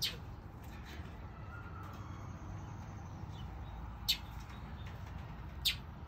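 Songbirds chirping: short, sharp, high-pitched call notes, with three loud ones at the very start, about four seconds in and near the end, and fainter calls between them.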